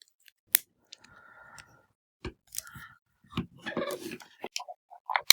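Hard plastic parts of a Lightning Collection King Sphinx action figure being handled and worked loose: a sharp click about half a second in, faint rubbing, then a cluster of small clicks and scrapes near the end.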